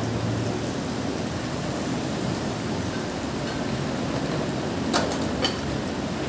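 A steady hiss of kitchen noise, with two sharp clicks about half a second apart near the end.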